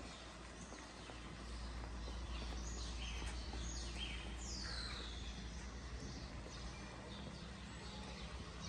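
Small birds chirping: a few short, high, falling calls in the middle, over a steady low rumble of outdoor background.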